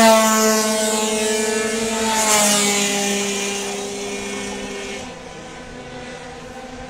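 Racing scooters passing at full throttle, each engine note dropping in pitch as it goes by: one passes at the start, another about two seconds in. The engine sound then fades away about five seconds in.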